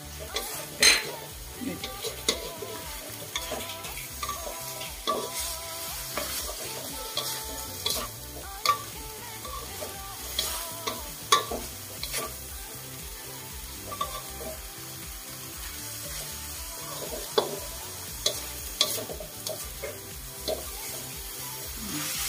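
Wooden spatula stirring and scraping food around an aluminium wok over a sizzling frying bed, with irregular scrapes and knocks against the pan.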